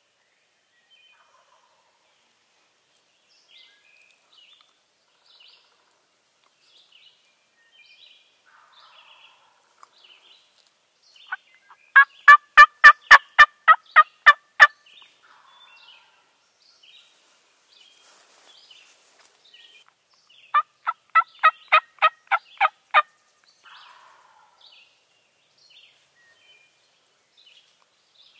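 Wild turkey gobbler gobbling twice at close range, each gobble a loud rapid rattle of about ten notes, the first louder than the second, with faint songbird chirps between.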